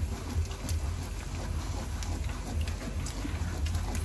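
A wooden spatula stirring a thick liquid in an aluminium pot, with soft scrapes and a few faint clicks over a steady low rumble.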